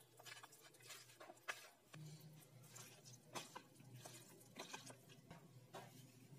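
Faint wet squishing and patting of a bare hand kneading raw chicken pieces in an egg-and-spice marinade in a bowl, in irregular soft squelches.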